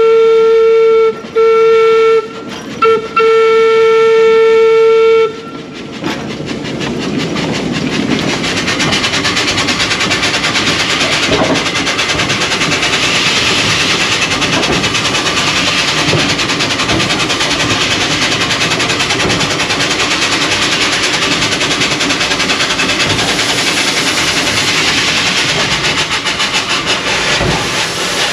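Glover steam logging locomotive's steam whistle blown in one long blast for about five seconds, with three brief breaks. Then the locomotive running along the track: a steady rush of steam exhaust and hiss with a fast, even clatter of wheels and running gear.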